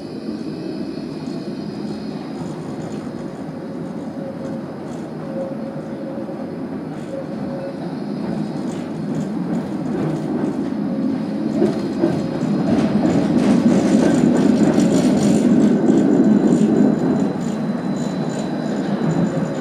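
Tram running along the track, heard from on board: a steady rumble of wheels on rails with a faint steady tone over it. It grows louder a little past the middle, with a few light clicks as it builds, then eases near the end.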